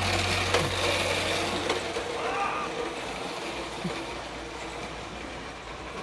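Razor Ground Force electric go-kart, upgraded to a 48-volt 1000-watt MY1020 motor with #25 chain drive, driving off across a concrete floor: motor and chain running with tyre noise, fading as the kart pulls away.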